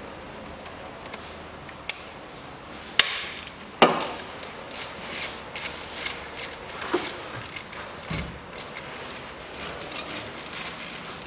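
Hand ratchet wrench on a socket and extension undoing the bolts of a valve mounting plate on the intake. A few sharp clicks come in the first four seconds, the loudest about four seconds in, then quick runs of ratchet clicking.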